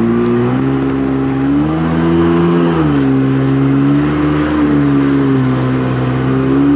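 Jet ski engine running at speed, its steady drone rising in pitch about two seconds in, dropping back a second later and rising again near the end with the throttle, over a rush of wind and water.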